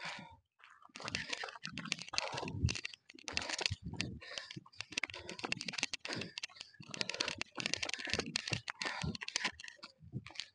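Crackling and rustling handling noise from a clip-on microphone held in the hand, coming in irregular, closely spaced bursts.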